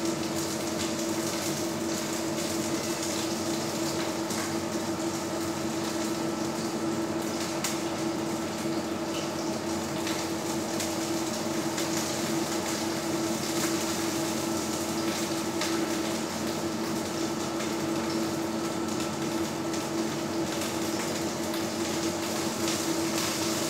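Fish steak and a piece of pork frying in a little oil in a nonstick pan on an induction hob: a steady sizzle with faint crackles, over a steady hum.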